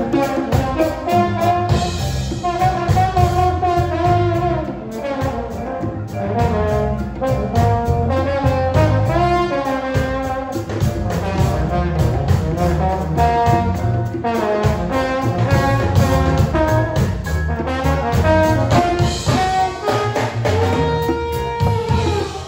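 Live band playing with a trombone taking the lead melody over bass, drums and vibraphone.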